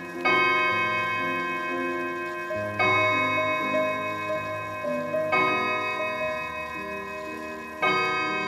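H.A.U. (Hamburg American Clock Company) quarter-striking mantel clock striking the hour on its gong: single ringing strikes about two and a half seconds apart, each left to ring out before the next.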